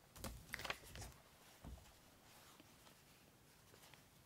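Near silence with faint handling noise: a few light rustles and taps of fabric and paper being handled in the first couple of seconds, then only room tone.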